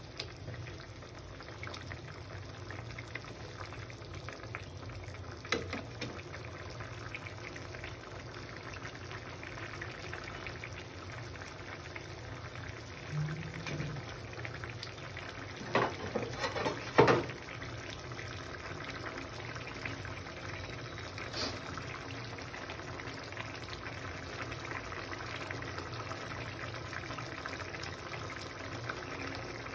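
Chicken curry gravy simmering in a pan on a gas stove, a steady soft bubbling. A metal spatula knocks and scrapes against the pan a few times midway, loudest about seventeen seconds in.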